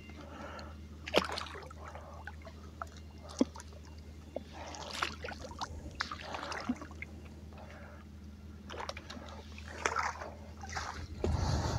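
Shallow water splashing and sloshing as a hooked common carp is brought in toward a landing net, with a couple of sharp knocks along the way and a louder low rumble near the end.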